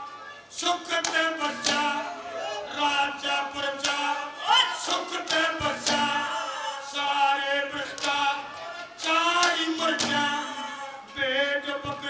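A man singing a Haryanvi ragni into stage microphones, holding long notes that glide between pitches, with musical accompaniment under the voice.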